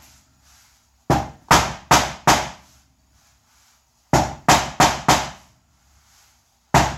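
Roofing hammer striking a dented car fender through a folded piece of vinyl to push the dent out: a quick run of four blows, a pause, four more, and another run starting near the end.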